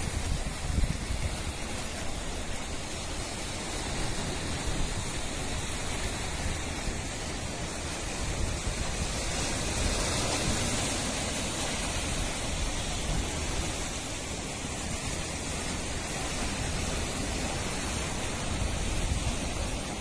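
Steady rushing of breaking sea surf, with wind rumbling on the microphone.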